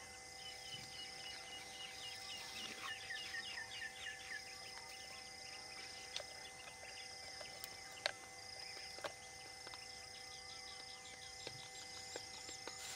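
Rural outdoor ambience of birds and insects: a short high note repeats about once a second, a run of quick chirps comes in the first few seconds, and rising high chirps come near the end. There is one sharp click about 8 seconds in.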